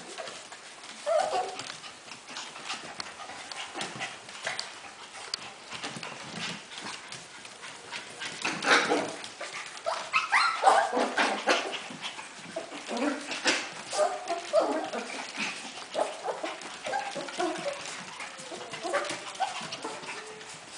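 A litter of Havanese puppies yipping and whining in short, frequent cries as they scramble and jump, with their claws clicking on a hardwood floor.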